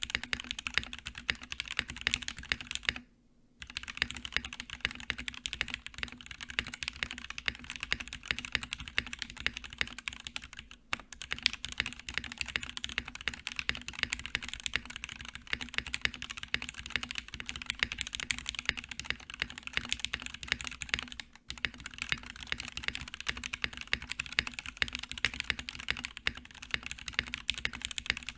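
Fast typing on a custom mechanical keyboard: a polycarbonate Project Keyboard Sirius with lubed Gateron Black Ink v2 linear switches, a POM plate and PBT keycaps, giving a dense stream of keystrokes. The typing pauses briefly about three seconds in.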